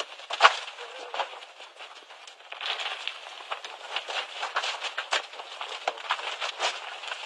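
Small stones and soil falling down a crumbling rock cliff, clattering in irregular clicks and knocks, with one loud knock about half a second in, over a hiss that grows louder about two and a half seconds in: loose rock breaking away from an unstable cliff face.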